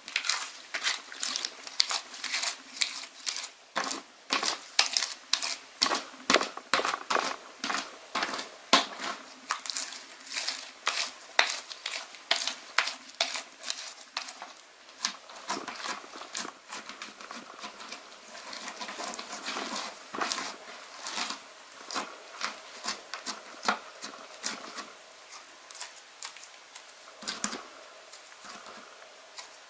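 Slime being squeezed and poked by hand, a run of sticky clicking pops about two a second, turning to a softer, steadier crackle in the middle stretch before the sharper pops return.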